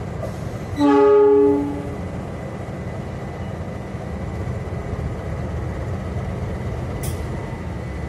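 A diesel locomotive horn sounds one blast of about a second, a little under a second in, over the steady low rumble of two diesel locomotives moving slowly past. A single sharp click comes near the end.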